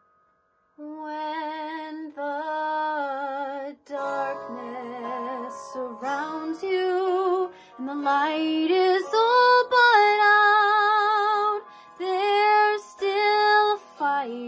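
Solo voice singing a musical-theatre song in held, wavering notes with vibrato, coming in after a brief silence; a soft sustained instrumental backing joins about four seconds in.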